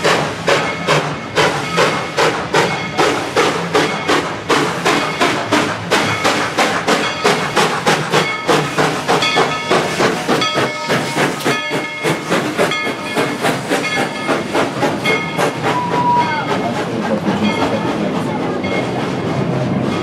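Steam locomotive working past at close range, its exhaust chuffing at about two to three beats a second. Near the end the beats give way to a steady hiss and the rolling noise of the cars following.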